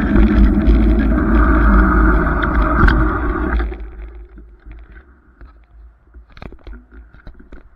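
Wind and road rumble on a bicycle-mounted camera's microphone while riding. It cuts off sharply a little over halfway through as the bike stops, leaving a quiet stretch with a few short clicks and knocks near the end.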